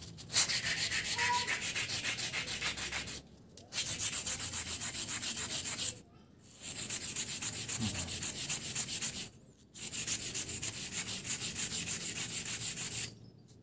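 Coarse sandpaper scrubbed in quick back-and-forth strokes along a steel sharpening rod, scouring off rust. It comes in four bursts with three short pauses between them.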